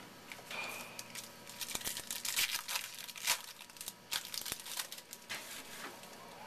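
Wrapper of a pack of 2011 Topps Lineage baseball cards being torn open and crinkled by hand: a run of crackling rustles that starts about half a second in, is busiest in the middle and thins out near the end.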